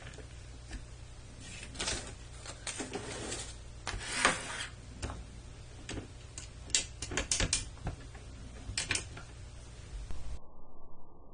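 Plastic clicking and rattling from the crank knob and lift mechanism of a Pororo toy forklift turned by hand, coming in irregular clusters of clicks and short scrapes.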